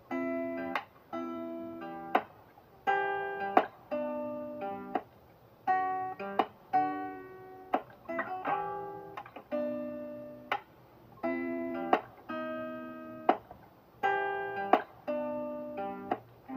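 Background music: strummed guitar chords struck in a steady rhythm, each ringing and fading before the next.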